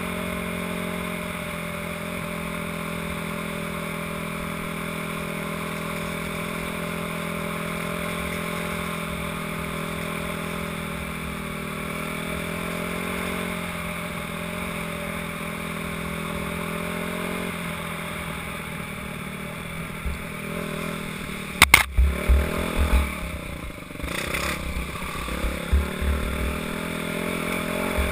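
Dirt bike engine running at a steady cruise, its pitch dropping as it eases off; about three-quarters of the way through a sharp knock, then irregular thumps and clatter as the bike rides onto a rough dirt trail.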